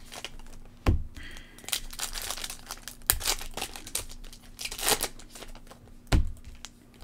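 Foil and plastic trading-card pack wrappers being crinkled and torn open by hand, with several sharp crackles as the wrappers rip.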